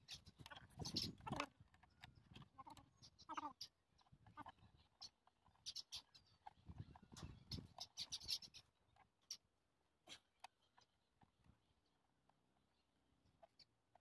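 Near silence broken by faint scattered clicks and taps of hands and a small tool on the plastic and metal of a motorcycle tail tidy as its nuts are fitted under the tail.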